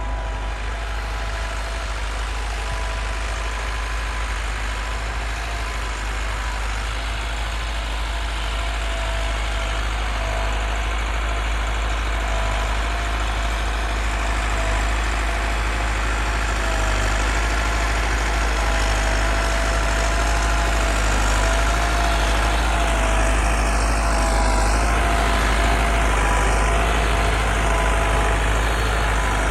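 Massey Ferguson 385 tractor's diesel engine running steadily, getting slightly louder toward the end.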